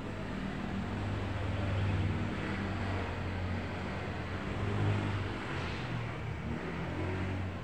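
A motor vehicle's engine running past, with a low hum that swells about two seconds in and again about five seconds in, then eases.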